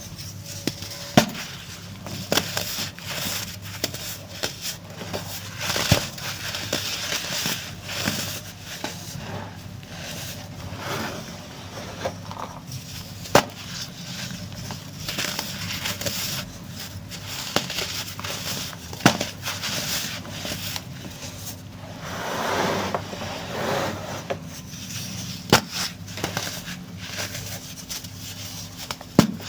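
Pressed baking soda crumbling and crunching as it is crushed, with a sharp snap about every five or six seconds. A steady low hum sits underneath.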